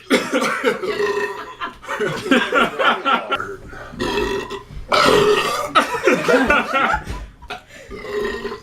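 A man burping: a series of long, loud belches with short breaks between them.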